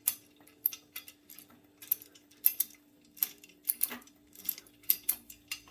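Light metallic clicks and clinks, irregular and about two a second, as the threaded end fitting of a weight machine's pull-down steel cable is unscrewed and handled.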